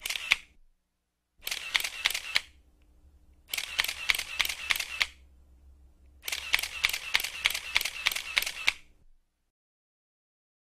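Camera shutter sound effect firing in bursts of rapid clicks: a short burst at the start, then three continuous-shooting bursts, each longer than the last, the final one lasting about two and a half seconds at about four clicks a second.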